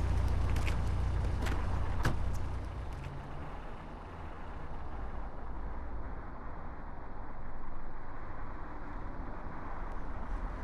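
Film soundtrack of street ambience: a steady low traffic rumble with a car engine, and a few sharp clicks in the first two seconds. It drops quieter after about two and a half seconds.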